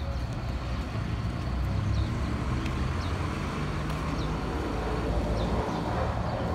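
Steady low rumble of city street ambience, with a few short high chirps scattered through it.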